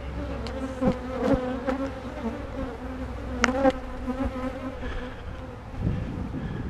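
Honeybees buzzing in a steady hum around an open hive, with a few light knocks, and a low rumble near the end.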